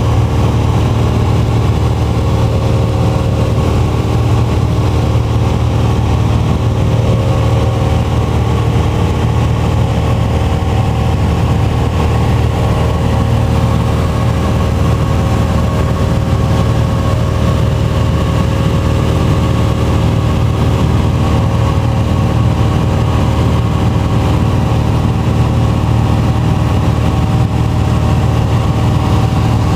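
Cessna 182 single-engine piston airplane heard from inside the cabin in flight: the engine and propeller make a loud, steady drone.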